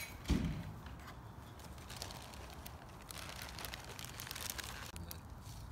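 Footsteps crunching up to a wood campfire, with scattered crackles and pops from the fire. A low thump about a third of a second in is the loudest sound.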